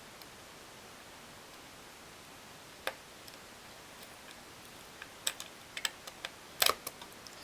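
Small sharp clicks and ticks of tiny laptop screws and a small screwdriver being handled. One click about three seconds in, then a scattered run of them, the loudest near the end.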